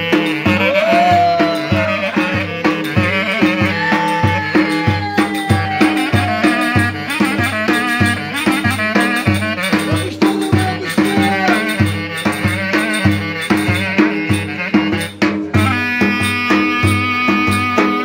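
Turkish folk dance music (oyun havası): a wind instrument plays a sliding melody over held tones and a steady drum beat.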